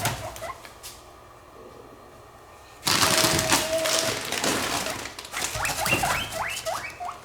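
Guinea pig wheeking in excitement at feeding time: a run of short, rising squeaks, about two a second, starting a little past halfway. Before them comes a loud rustling noise lasting about two seconds.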